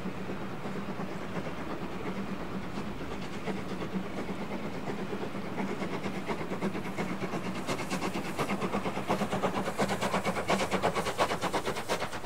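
A train approaching at speed: a steady hum, then a quick, even rhythm of beats from about three seconds in that grows steadily louder and cuts off suddenly near the end.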